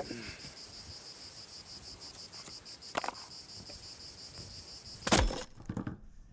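Insects chirping in a steady, evenly pulsing buzz, with a knock about three seconds in and a louder thump near the end, after which the chirping cuts off suddenly.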